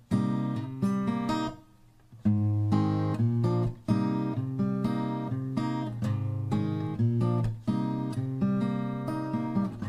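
Background music on acoustic guitar: plucked notes, a brief pause about two seconds in, then strummed chords.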